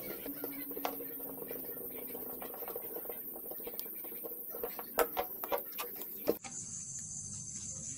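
Small scrapes and clicks of a screwdriver working at the plastic base of a rice cooker. They are followed, about five seconds in, by a quick run of sharp clicks and knocks as the plastic casing is handled and turned, ending in one louder knock.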